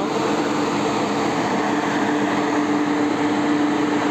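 Steady drone of a large ship's machinery heard on deck: a constant hum over an even rushing hiss, unchanging throughout.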